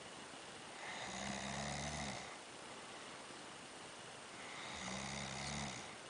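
A person snoring: two snores, each about a second and a half long, with a low buzzing pitch, roughly three and a half seconds apart.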